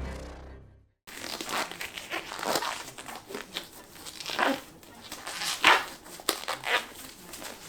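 Music fading out, then packaging crinkling and rustling in irregular bursts of handling as a boxed figure is unpacked.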